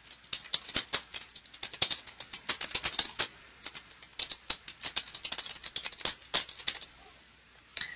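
Typing on a computer keyboard: quick, uneven key clicks in two runs of about three seconds each with a brief pause between, stopping about a second before the end.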